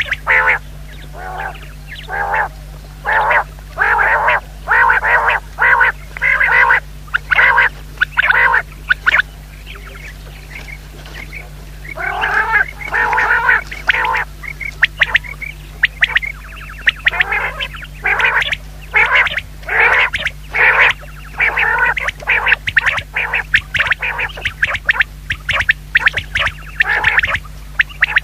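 Common quail calling: runs of short, rapidly repeated raspy calls in bursts, with a pause of about two seconds roughly a third of the way in, over a steady low hum.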